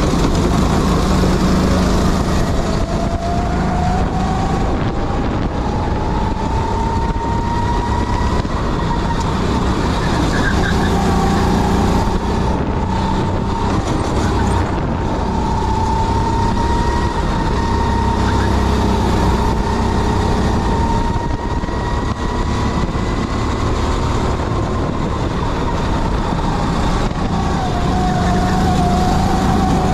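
Sodikart go-kart engine running hard on track. Its pitch drops near the start, climbs over several seconds and holds high for a long stretch, then dips near the end and climbs again: the kart lifting for corners and accelerating along the straights.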